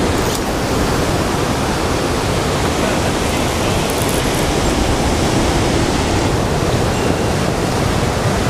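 Steady wash of ocean surf breaking onto a beach of rounded lava cobbles, a loud even noise with no rhythm or tone.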